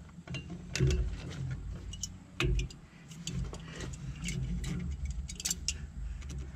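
Rubber oil cooler hoses and their metal hose clamps being handled and worked onto the pipe fittings: scattered light clicks and taps a second or so apart, over a faint low rumble.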